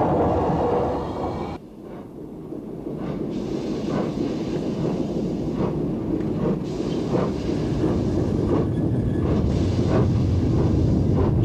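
Metropolitan Railway Class E 0-4-4 tank steam locomotive working a train of wagons, its exhaust beats coming in a steady rhythm of a little under two a second.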